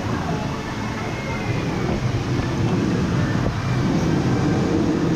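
Rushing, churning water of a wave-driven whitewater river, splashing close to the microphone, with a steady low rumble and faint distant voices.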